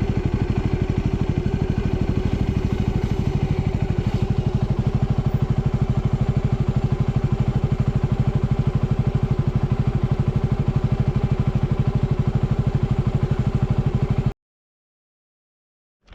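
Adventure motorcycle engine running at a steady speed with an even, fast pulsing beat, cutting off abruptly near the end.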